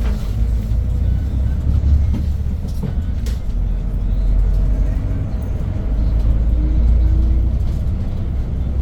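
Hyundai New Super Aerocity city bus driving, heard from inside the cabin: its C6AF CNG engine (290 ps) gives a steady low rumble with road noise, swelling twice, about two seconds in and again in the second half.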